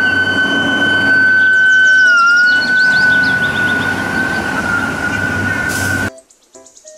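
Fire truck sirens: one holds a steady high wail with a brief dip about two seconds in, while a quicker siren sweeps over it in short falling chirps. The sound cuts off abruptly about six seconds in.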